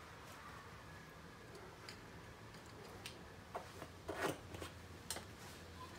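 Faint, scattered clicks and knocks of a steel chainsaw guide bar being handled and turned over in gloved hands, the loudest about four seconds in.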